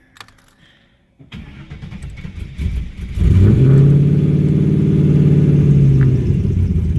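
1998 Pontiac Trans Am WS6's swapped iron-block 6.0 L V8 restarted after stalling: the starter cranks it for about two seconds, it catches with a flare about three seconds in, then settles to a steady idle. The hard start is put down to the engine not yet being tuned for the 6.0.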